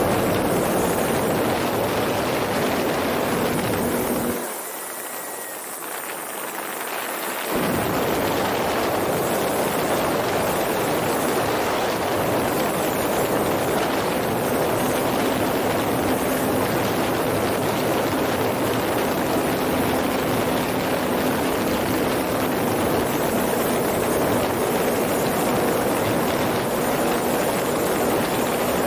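Radio-controlled model warplane in flight, heard from its onboard camera: a steady rush of wind with the hum of its motor and propeller. About four seconds in the sound drops away and thins for roughly three seconds, then comes back at full strength.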